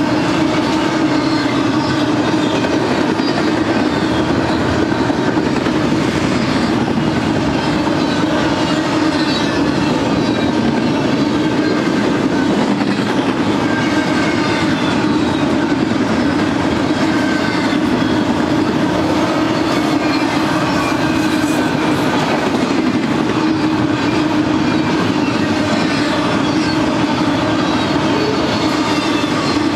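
Double-stack intermodal freight cars rolling past, a loud steady rumble and clatter of steel wheels on rail with a continuous hum.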